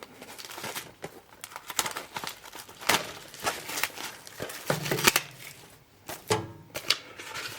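Plastic shrink-wrap being torn open and peeled off a steelbook case: irregular crinkling and crackling with sharp tearing snaps.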